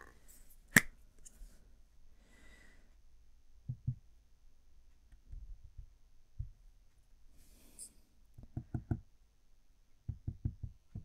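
Quiet handling of a plastic craft-glue squeeze bottle over wooden popsicle sticks on a table: a single sharp click about a second in, then two short runs of quick soft taps near the end as glue is squeezed out along the sticks.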